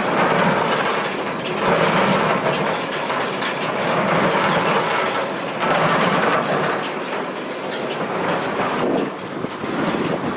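1997 Case IH 8575 large square baler running, its mechanism clattering steadily and growing louder and softer every second or two.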